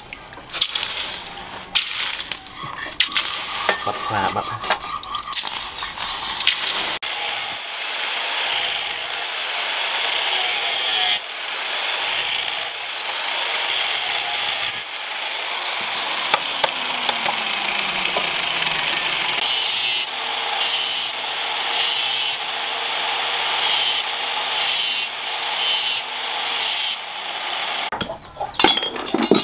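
An angle grinder grinding the edge of a steel cleaver blade. The grinding comes and goes as the disc is pressed to the steel and lifted, and the pitch sags for a few seconds in the middle. Before it there are a few seconds of clinks and knocks as the blade is handled.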